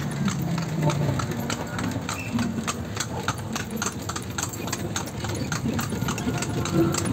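Horse's hooves clip-clopping on a paved road as it pulls a kalesa, a Philippine horse-drawn carriage: a continuous run of sharp hoof strikes.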